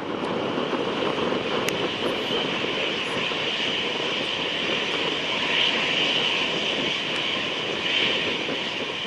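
Jet engines of an Airbus A321-211, CFM56 turbofans, running at takeoff power: a steady, loud rush of noise with a hissing upper band.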